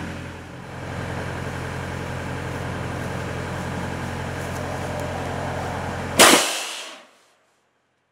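Diesel air-compressor engine running steadily. About six seconds in, a sudden loud blast as the pumpkin cannon's compressed air is released, firing a pumpkin, with a rushing hiss that dies away in under a second.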